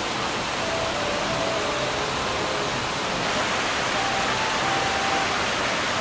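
Shallow mountain stream running over flat rock and small riffles: a steady, even rush of water. A faint melody sits underneath.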